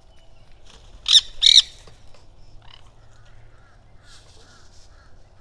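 Nanday conure (black-hooded parakeet) giving two loud, harsh screeches in quick succession about a second in. Fainter, shorter bird calls follow.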